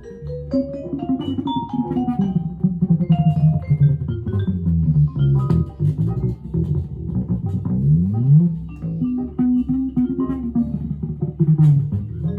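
Headless Cort electric guitar with flatwound strings playing a jazz line of plucked single notes, with a few quick upward slides about eight seconds in.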